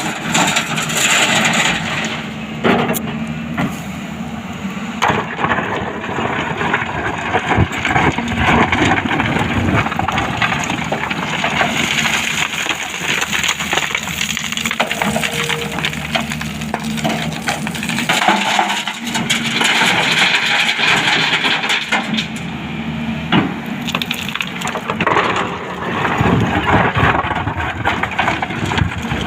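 Excavator at work: a steady engine hum under loud, irregular crunching and cracking, as of the bucket digging into soil and rock.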